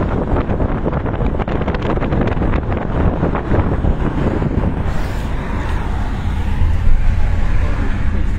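Wind buffeting a phone's microphone held out of a moving car's window, over the car's road noise. About five seconds in the buffeting eases to a smoother rush as the phone comes back inside the car.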